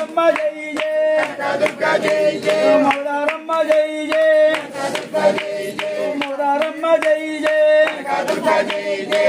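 Group of voices singing a devotional song to a steady clapping beat, over a steady held note.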